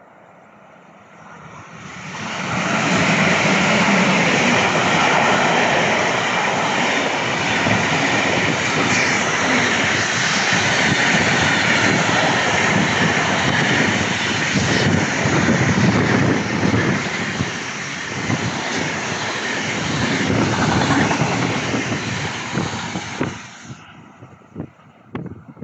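A train passing close by: the noise comes up quickly about two seconds in, stays loud and steady for about twenty seconds, and drops off sharply near the end.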